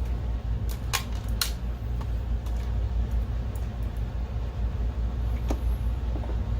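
A few sharp clicks of a hand screwdriver and screws against the plastic case of a projector, the two loudest about a second in, over a steady low hum.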